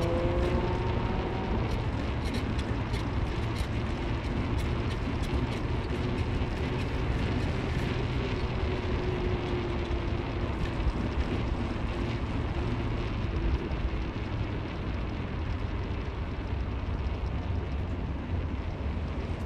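Car driving along: steady engine and road noise, with the engine note rising as it accelerates and then fading into the rumble in the first second or so.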